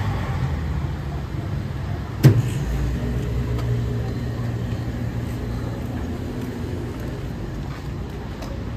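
Steady low hum of a running motor, with one sharp knock about two seconds in.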